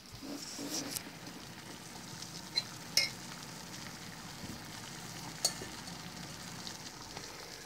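Water bubbling at a rolling boil in a stainless steel saucepan on the hob, a steady hiss of bubbles, with a few sharp clinks partway through.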